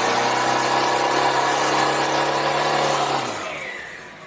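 Car doing a burnout: the engine is held at steady high revs while the rear tyre spins and screeches on the pavement. The sound fades out over the last second or so.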